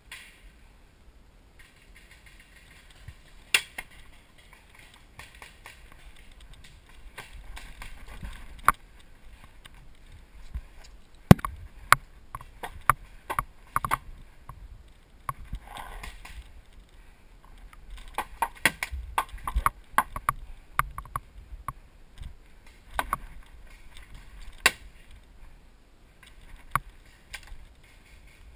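Paintball markers firing in scattered single shots and short strings: irregular sharp pops, some close and loud, over a low rustle of wind and gear.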